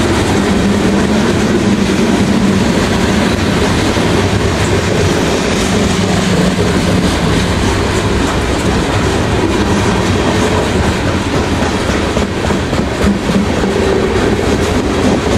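Steel coal cars of a Canadian Pacific freight train rolling past close by: the loud, steady noise of steel wheels running on the rails.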